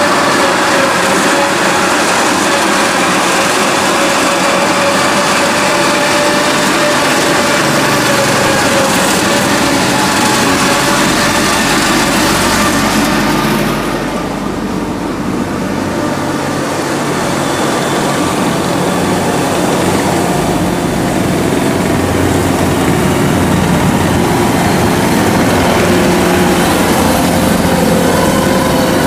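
Engines of tracked farm machines running steadily as they drive past on the road: a red rubber-tracked crawler carrier, then a Kubota DC93 combine harvester's diesel engine passing close by near the end.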